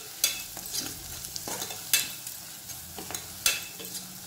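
A metal ladle stirring onions and ground spices frying in oil in an aluminium pressure cooker. A steady sizzle runs under several sharp scrapes and knocks of the ladle against the pot.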